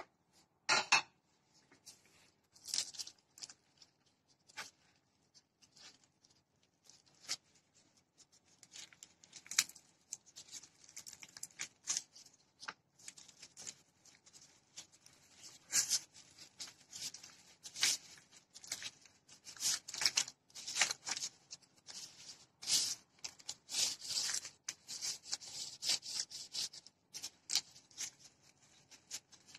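Irregular rustling, crinkling and light clicks from hands rolling a rice-and-seaweed roll in a bamboo sushi mat, one hand in a thin plastic glove. The handling grows busier in the second half.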